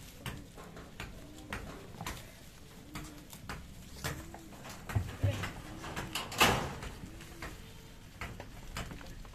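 Goats tearing and munching long green fodder leaves held out by hand, with crisp rustling and crackling of the leaf bundle throughout. There is a louder rustle about six and a half seconds in.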